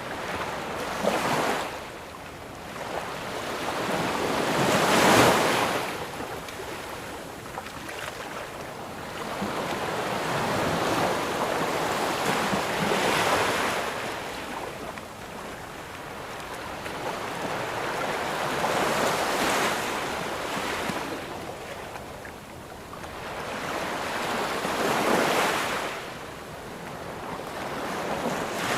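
Ocean waves breaking and washing up on a sandy beach, in swells every six seconds or so, each one building and then hissing away, with some wind on the microphone.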